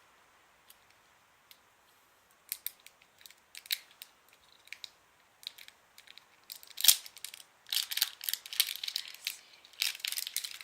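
A surprise egg being opened by hand: scattered clicks and crinkles, then dense crackling of the wrapper and packaging from about six seconds in, with one loud snap near seven seconds as it is worked open with some difficulty.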